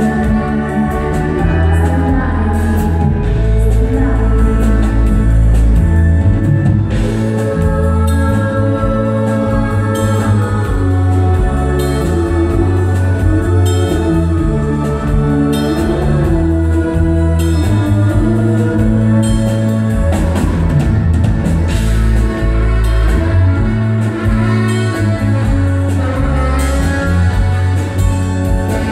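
Live band playing: singers over drum kit, electric guitar and keyboard.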